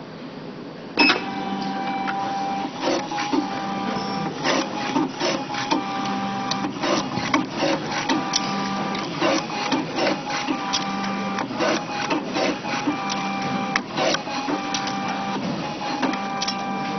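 Automatic business card cutter starting up about a second in and running: a motor whine that breaks off and resumes in short spans, with regular clicks about twice a second as cards feed through the rollers and are cut.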